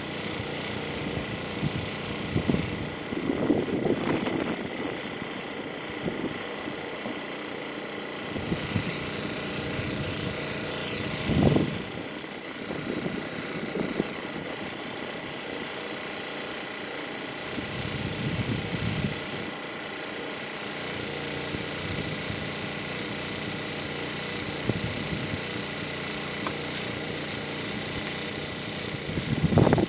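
A small engine running steadily, with a constant high whine over it. A few brief louder bumps break through, the clearest about a third of the way in.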